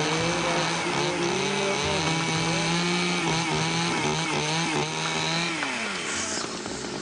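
Motor of a power saw running steadily, its pitch dipping and wavering as it bites into meat. It spins down with a falling pitch about five and a half seconds in.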